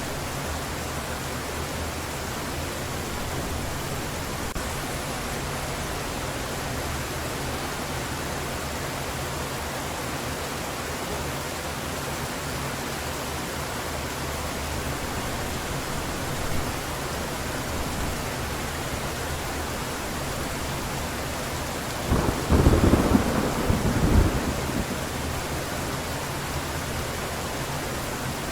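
Heavy rain falling steadily, with a loud crack of thunder about three-quarters of the way through that rumbles for about two seconds.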